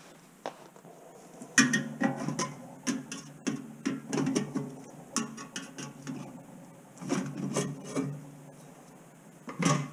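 Lid of a metal gallon can of acetone being pried open by hand with a tool: a string of sharp metal clicks, taps and scrapes around the rim, then one more knock near the end.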